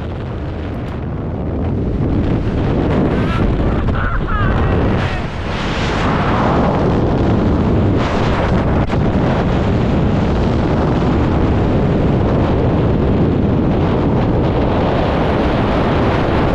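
Loud, steady wind rushing over the camera's microphone in skydiving freefall, swelling about two seconds in.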